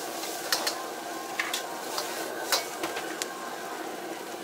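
A metal ladle clanks and scrapes against a wok as noodles, bean sprouts and greens are stir-fried, with about eight sharp knocks over a steady sizzling hiss.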